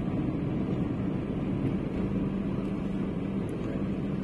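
Maruti car's engine and road noise heard from inside the cabin while driving: a steady low drone with a constant hum.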